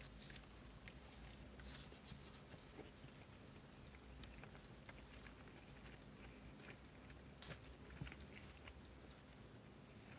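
Faint chewing of a mouthful of burger, mouth closed, with scattered small soft clicks.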